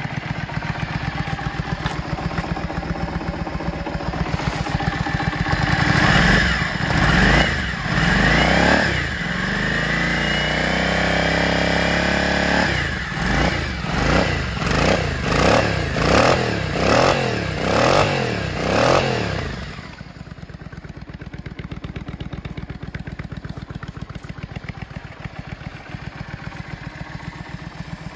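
Yamaha Drag Star 400's air-cooled V-twin, breathing through aftermarket slash-cut mufflers, idling and being revved. A few throttle rises come about four to nine seconds in, then a held higher rev, then a run of about seven quick blips, before it settles back to a steady idle for the last eight seconds.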